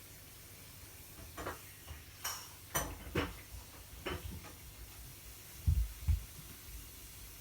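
Cats play-wrestling: a run of scuffles and light knocks, then two heavier, low thumps close together about two-thirds of the way in.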